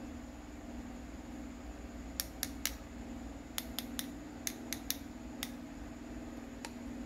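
Wooden graphite pencils clicking together as they are crossed and knocked against each other: about eleven sharp, light clicks, mostly in quick groups of three, starting about two seconds in. A steady low hum runs underneath.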